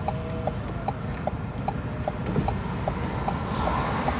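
A car's indicator clicking steadily, about two and a half clicks a second, over the low hum of the car idling at a standstill.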